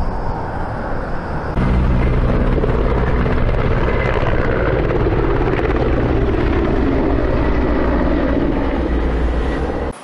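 Firefighting helicopter with a water bucket flying low overhead, its rotor and engine loud and steady. It comes in abruptly about a second and a half in and cuts off just before the end. Before it there is a quieter roadside background.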